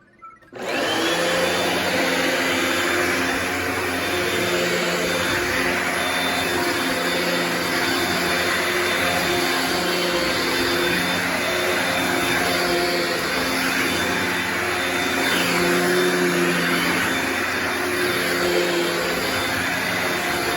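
Hoover Powerdash Pet carpet cleaner switched on about half a second in, then running steadily: the suction motor's hum and hiss, its pitch wavering slightly.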